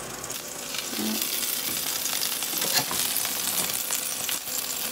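Chicken wings sizzling and crackling in the air fry basket of a Ninja Foodi air fry oven at 400°F, near the end of their cook. A couple of light knocks come later on as the oven door is opened and the basket is slid out with tongs.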